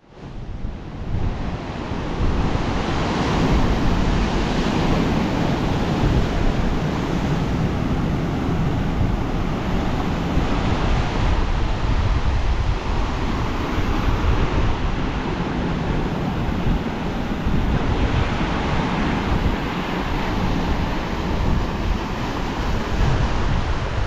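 Heavy storm surf breaking on the shore, a constant deep rumble with surges every few seconds, and wind buffeting the microphone.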